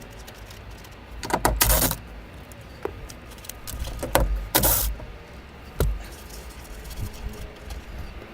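Hand tools clinking and rattling in short bursts, with a sharp click about six seconds in, while the mirror's mounting bolts are taken out of the truck door.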